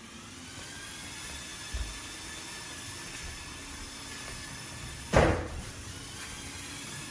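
Lego Mindstorms remote-control car driving on a hardwood floor: its electric drive motors and plastic gear train whine steadily. A single loud thump comes about five seconds in.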